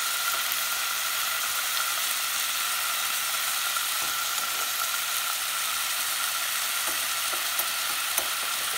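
Meatballs sizzling steadily in a frying pan, a constant crackling hiss of fat frying, with a couple of small pops near the end.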